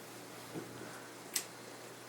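Casablanca Ventura ceiling fan running with a steady low motor hum and the rush of air, with one sharp click about a second and a half in. The fan has a slight clicking that the owner puts down to a warped blade bracket.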